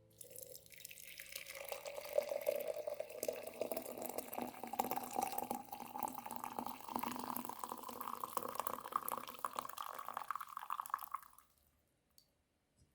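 Liquid poured in a steady stream into a container for about eleven seconds, the pitch of the pour rising as the container fills, then stopping. Two faint clicks follow near the end.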